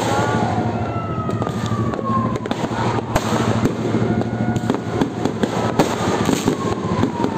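Fireworks display: dense popping and crackling bursts, with long whistles that fall slowly in pitch, one about a second in and another near the end.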